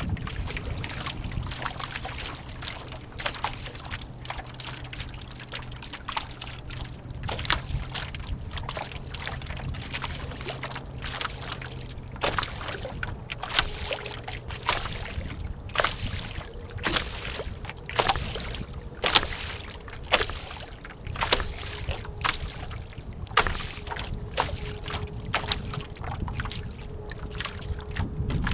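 Water slapping and splashing against the hull of an 11-foot Snark sailboat under sail: irregular sharp slaps a few times a second, getting louder and brighter about halfway through. There is a low wind rumble on the microphone.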